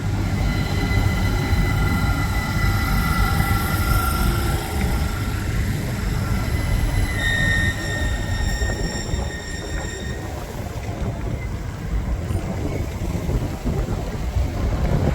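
Train running past with a steady low rumble and high, sustained whining tones, strongest for a few seconds around the middle.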